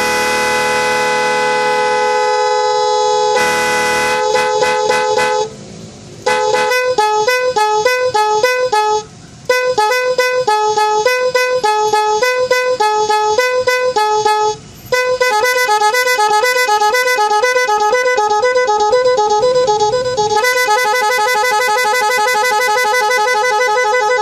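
Multi-tone snail-type electric vehicle horn (klakson keong) sounding: a steady two-note tone for about five seconds, then fast alternating two-pitch warbling patterns with brief breaks about 6, 9 and 15 seconds in, switching to a quicker trill near the end.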